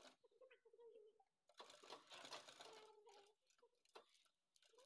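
Flatbed sewing machine stitching leather for a sandal upper, faint: one short run of stitching about a second and a half in, then a few light clicks.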